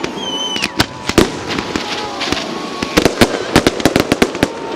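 Fireworks going off: scattered sharp bangs, a whistling tone falling in pitch near the start, then a quick run of crackling bangs in the second half.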